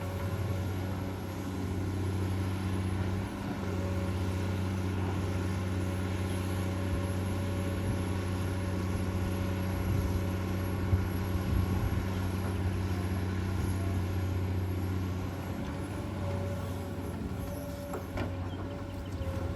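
Komatsu PC200-8 excavator's six-cylinder diesel engine running steadily, with a short sharp knock about eleven seconds in.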